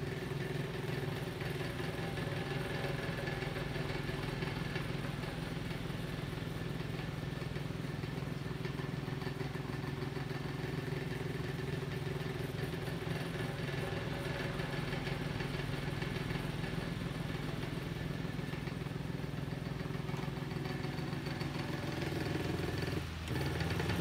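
Antique 12-inch Diehl oscillating table fan with steel blades running at medium speed: a steady motor hum with air noise, from bearings that are a little worn. About a second before the end a click as the speed is switched up and the hum changes.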